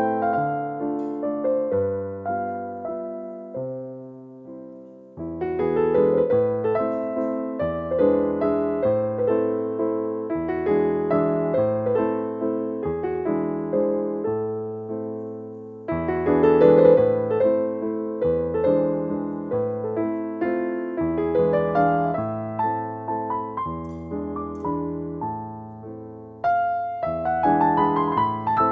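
Background piano music: a gentle melody over bass notes, fading out and starting a new phrase about five seconds in, again near the middle, and once more near the end.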